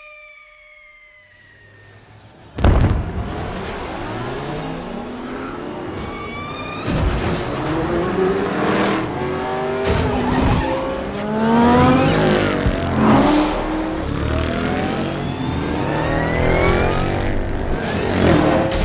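Many race cars launching together about two and a half seconds in, then engines revving up and speeding past, their pitches rising and falling over one another. Tyre squeal and several sharp hits run through it.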